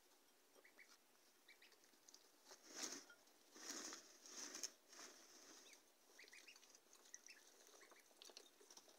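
Week-old Pekin, Rouen and Swedish Black ducklings peeping softly in short scattered chirps, with a few louder rustling bursts about three to five seconds in.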